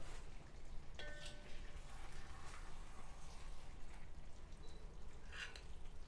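A metal spoon clinking and scraping against a cast-iron pot and a ceramic plate as pot roast is served out: a sharp clink with a brief ring about a second in and a short scrape near the end, over a faint steady low hum.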